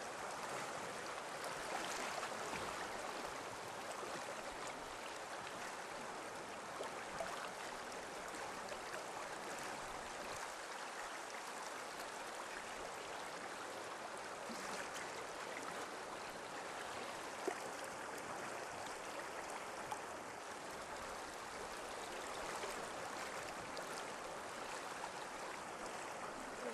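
Steady rush of whitewater river rapids, with a few brief clicks about a quarter, two thirds and three quarters of the way through.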